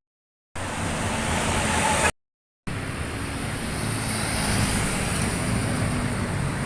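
Road traffic with buses passing: a steady engine rumble under road noise, with no horn tune sounding. The sound drops out to dead silence twice, briefly, in the first few seconds.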